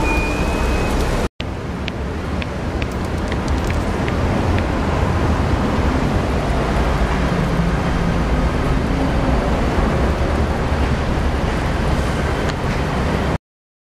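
Steady outdoor city background noise, an even traffic-like rush and hiss, with a few faint clicks. It breaks off for an instant about a second in and cuts off just before the end.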